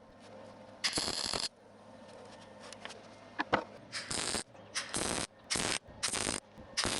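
A series of short MIG spot welds on car body sheet steel, each a burst of crackling about half a second long. There is one about a second in, then four or five more, each about a second apart, in the second half, with a couple of light clicks between them.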